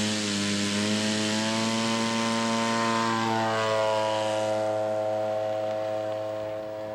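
Zenoah G-62 two-stroke gas engine of a 1/3-scale Cub model plane running hard on a glider-towing takeoff. Its pitch rises at first, then holds steady, and the sound fades somewhat near the end as the plane pulls away.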